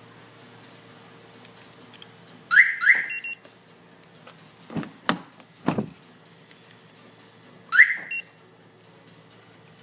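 GSM car alarm siren on a Hyundai i30 giving two short chirps, then three clunks, then one more chirp near the end.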